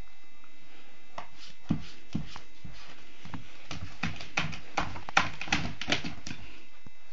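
Irregular taps and knocks from a Border Collie puppy pawing and scrabbling at a cupboard door, coming faster and louder after about four seconds.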